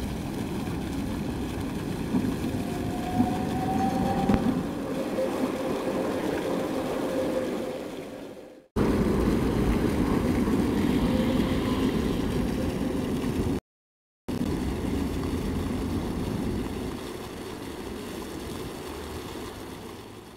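Street traffic with a tram passing on its rails: a steady mix of vehicle rumble and road noise, with a faint rising whine a few seconds in. The sound breaks off abruptly about nine seconds in and drops out briefly a few seconds later.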